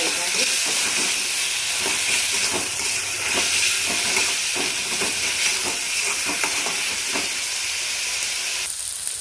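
Onion and tomato puree frying in hot oil in a pan, a steady sizzle, with a spoon stirring and scraping the pan in repeated short strokes. The masala is being sautéed until the oil separates. The sizzle drops away suddenly near the end while the stirring goes on.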